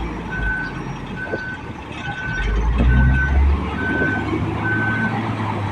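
Truck's reversing alarm beeping about once a second, each beep a short steady high tone, over the low running of its engine; the beeps stop near the end.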